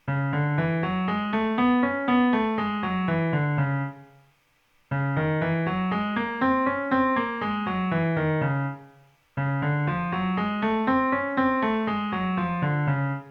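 Toontrack EZkeys 2 sampled grand piano playing a quick arpeggiated phrase three times, each about four seconds long with a short gap between. Each phrase climbs and then falls back in pitch. It is replayed in a different scale each time to give a different mood.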